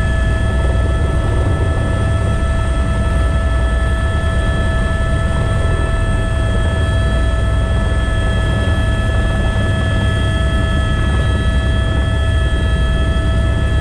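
Helicopter turbine and rotor noise heard inside the cabin: a steady whine of several pitches over a heavy low rumble.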